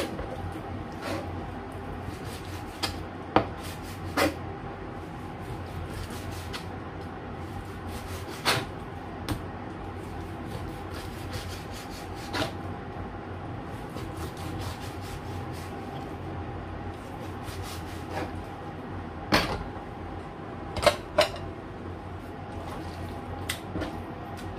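Kitchen knife knocking on a plastic cutting board while slicing raw chicken: sharp, irregular knocks a few seconds apart, two of them close together near the end, over a steady background hum.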